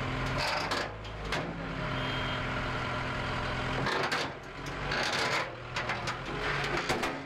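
Heavy vehicle engine running steadily, with scattered knocks and clatter.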